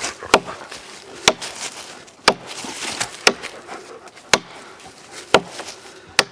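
Gränsfors Bruks Mini Hatchet chopping into a log with steady strokes about once a second, seven sharp strikes in all, each a crisp knock of steel into wood.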